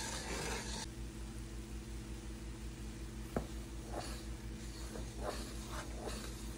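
Wooden spatula stirring jaggery syrup boiling in a metal wok as the jaggery melts into chashni: faint scrapes and stirring strokes, more of them in the second half, over a steady low hum. One sharp click a little past halfway.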